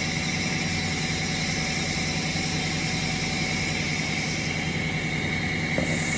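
SIPUXIN 50L vacuum emulsifying mixer running, its homogenizer and agitator blades turning in cream: a steady machine hum with a constant high whine.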